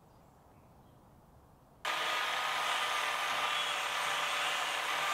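A handheld power tool switches on about two seconds in and runs steadily with a whine, stripping paint off a steel post down to bare metal.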